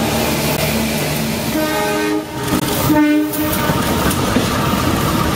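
Train horn sounding in short blasts, one at about a second and a half in and another at about three seconds, with a brief break between, over the steady noise and clatter of a running train.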